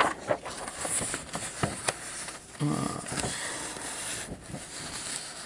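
Rustling and light clicks and knocks of a paper sheet being handled on a table, with a brief vocal sound about two and a half seconds in.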